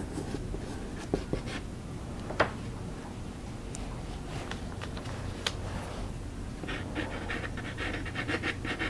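Soft pastel stick scratching on paper in short strokes, with a quick run of rapid flicks near the end and a few light taps earlier.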